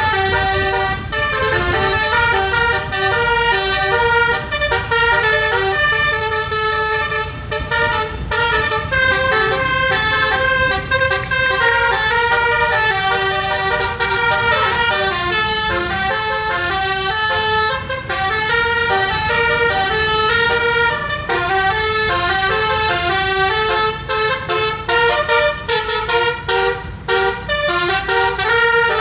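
Basuri 'telolet' multi-trumpet musical bus horn (a 12-trumpet set) playing a tune, note after note in quick steps with several trumpets sounding together, over a low rumble.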